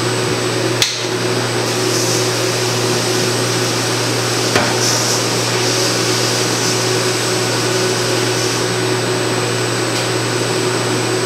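Bosch EPS 205 diesel injector test bench running with a 6.7-litre Dodge common-rail injector mounted: a steady, loud hum and hiss, with two sharp clicks about one second and four and a half seconds in.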